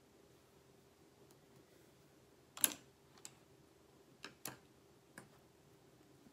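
A few light clicks and taps of small objects being handled and set down. One sharper click comes about two and a half seconds in, then four fainter ones over the next few seconds, over a faint steady room hum.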